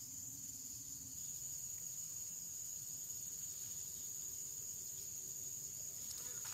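Insects chirring in a steady, unbroken high-pitched drone.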